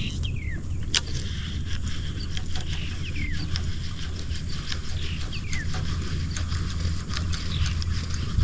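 Low wind rumble on the microphone, with light clicks from a baitcasting reel being handled, one sharper click about a second in. A bird gives a short falling call three times, a few seconds apart.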